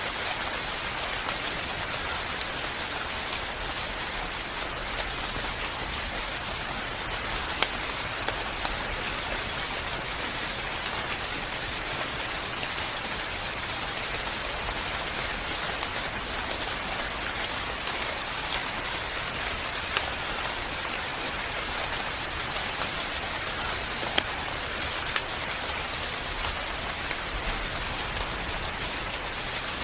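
Steady rain falling and pattering on a surface, with now and then a single louder drop striking close by.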